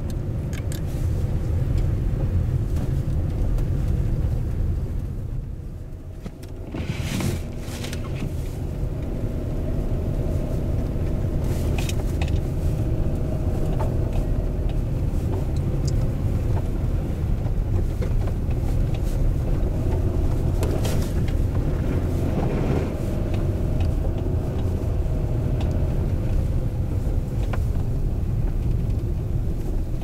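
Vehicle driving on a snow-covered road, heard from inside the cabin: a steady low engine and tyre rumble with a faint hum. The rumble dips briefly about six seconds in, with a few short knocks scattered through.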